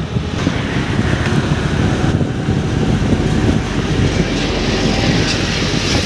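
Wind buffeting the microphone over the steady noise of a vehicle moving along a road.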